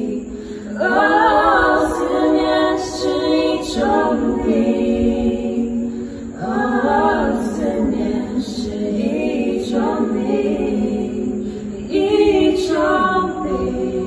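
A small group of mixed voices singing a cappella in harmony, in several long held phrases. The voices ring with the echo of a concrete culvert.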